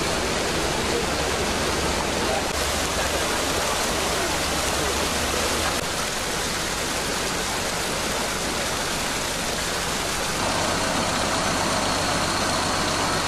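Irrigation water gushing steadily from pump outlet pipes into a concrete channel. About ten seconds in, this gives way to the steady hum of the stationary engines that drive the irrigation pumps by belts.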